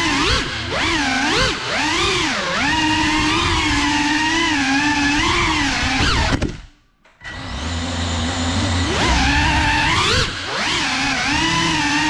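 GEPRC 35 cinewhoop FPV quadcopter's motors and ducted propellers whining, the pitch swooping up and down with the throttle. A little past halfway the throttle is cut and the whine falls almost to silence for under a second, then climbs back.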